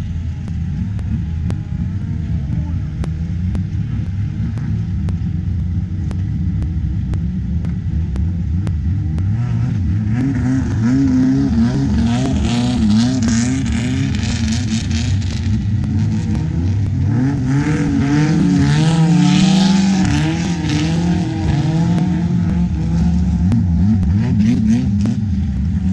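Turbocharged diesel engine of a Thai long-tail boat running, heard from aboard. About ten seconds in its pitch climbs as it accelerates, with a high hissing rush over the top that is loudest just before twenty seconds in as the boat gets up to speed.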